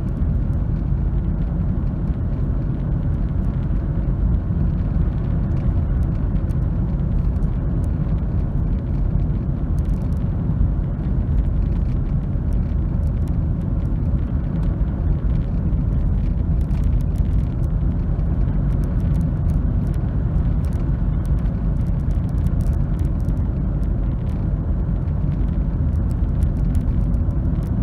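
Steady in-cabin drive noise of a 2002 Fiat Punto 1.2 8-valve on snow: a low, even rumble of engine and studded winter tyres on the road. Light scattered ticks come in from about ten seconds on, thickening in the second half.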